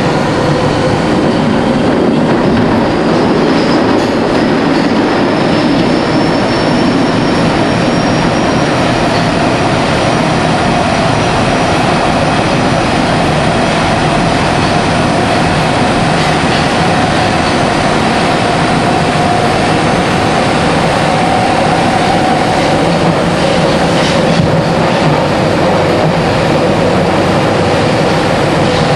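Nagoya subway Meikō Line train running through the tunnel, heard from on board: a steady loud roar of wheels on rail, with a faint motor whine that slowly rises in pitch as the train gathers speed.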